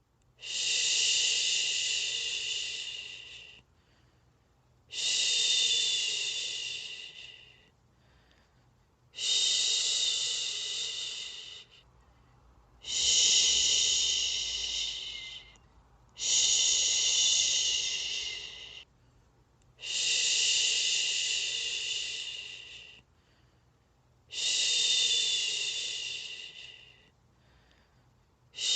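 A person shushing a baby to sleep: long, steady 'shhh' sounds, seven in a row, each lasting about three seconds, starting sharply and fading away, with a short pause between them.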